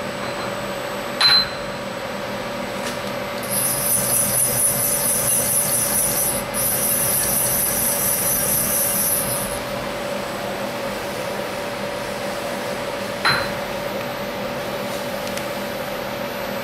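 Two sharp, ringing taps of a mallet on a steel machine vise, one about a second in and one about 13 seconds in, knocking the vise gently into alignment on the milling machine table. A steady machine hum runs under the taps, and a high hiss sounds for several seconds in the middle.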